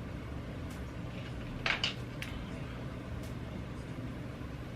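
Steady low room hum with two quick light clicks close together a little under two seconds in, and a few fainter ticks.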